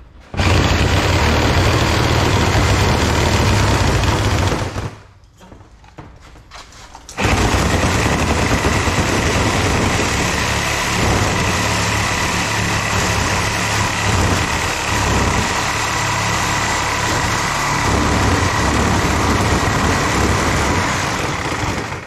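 Corded power saw running as it cuts into a copper radiator coil, with a rough low rumble and a steady high whine. It stops for about two seconds around five seconds in, then starts again and runs until just before the end.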